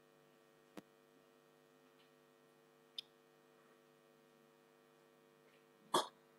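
Quiet room tone with a faint steady electrical hum, broken by a few faint clicks: one about a second in, one about three seconds in, and a slightly louder one near the end.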